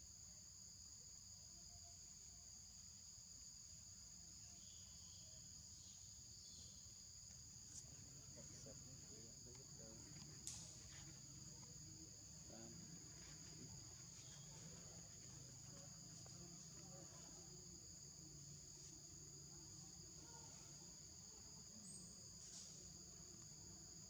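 Faint, steady forest insect chorus: a continuous high-pitched trill at two pitches, with a few faint clicks, the sharpest about ten seconds in.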